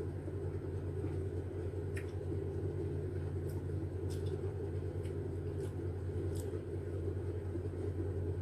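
A steady low hum, with a few faint brief clicks of eating as a citrus segment is peeled and chewed.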